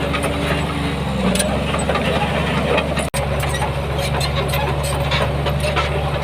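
Heavy earthmoving machine's diesel engine running steadily, with scattered clicks and knocks. The sound drops out for an instant about three seconds in and returns with a slightly different engine note.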